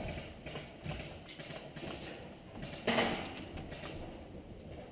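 Small taps and rustles of a player's clothing and gear close to the microphone, with one sharp knock about three seconds in.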